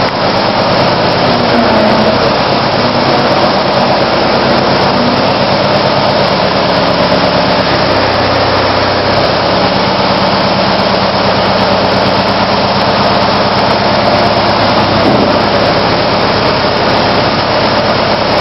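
Case 420 skid-steer loader's engine running steadily under the operator as the loader arms raise and lower the bucket, its note shifting slightly about halfway through and again near the end.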